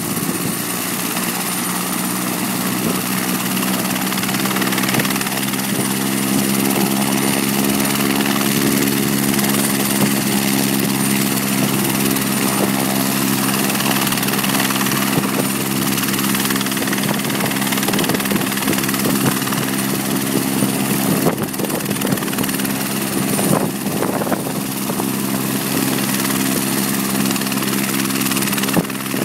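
Light helicopter running on the ground with its rotor turning, a steady engine and rotor drone that grows slightly louder over the first few seconds, then holds.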